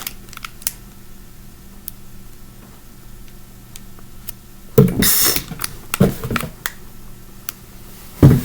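Handling of small plastic fidget toys and their packaging: scattered light clicks and taps, with a brief loud plastic rustle about five seconds in.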